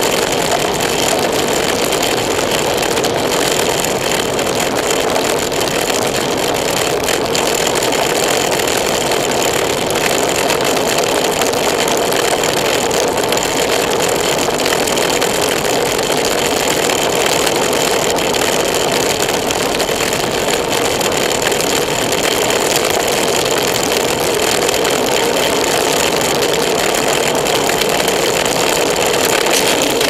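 Steady rush of wind and road noise on a Contour action camera's microphone, carried along at riding speed in a pack of road bikes, unchanging throughout.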